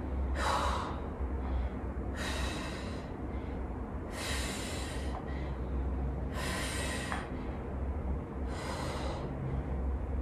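A woman breathing hard through a set of dumbbell reverse flies: a forceful, hissy breath about every two seconds, five in all, keeping time with the reps.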